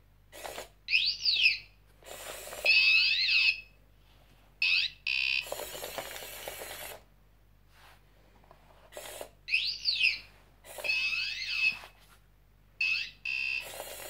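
A small robot's piezo buzzer playing Otto DIY-style sound effects: quick rising and falling whistling sweeps, a held high tone and short beeps, the same sequence twice. Between them come bursts of its small gear motors driving the plastic tracks.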